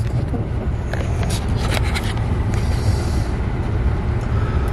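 Steady low rumble of a car's engine and tyres heard from inside the moving car, with a few sharp clicks and knocks about one to two seconds in and a brief hiss a little past the middle.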